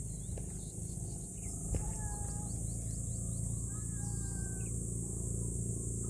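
Outdoor hillside ambience: a steady high insect drone over a low rumble, with a few knocks of footsteps on concrete steps, the clearest nearly two seconds in, and a couple of brief thin whistled notes.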